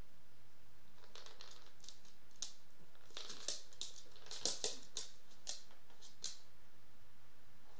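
A small dog's claws clicking and tapping on a hardwood floor as it scrabbles and turns, a quick irregular run of sharp clicks that is busiest near the middle, over a low steady hum.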